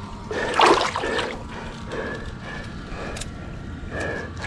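Water sloshing around a person's legs as they wade in waist-deep, muddy water, with a louder surge about a second in.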